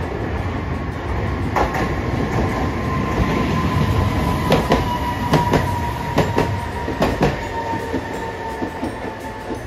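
A Hiroden 3950-series "Green Liner" articulated low-floor tram rumbling past close by along the platform, with a steady whine. Its wheels clack over rail joints in quick pairs, several times from the middle of the passage on.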